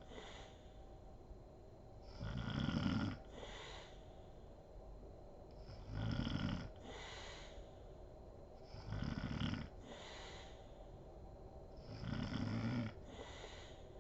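A sleeping woman snoring: four snores on the in-breath, about one every three seconds, each followed by a breathy exhale.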